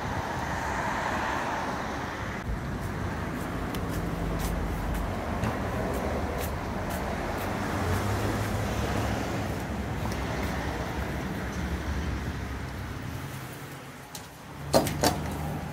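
Road traffic on a city street: a steady rumble and hiss from passing cars. Near the end the traffic eases and two sharp knocks come in quick succession.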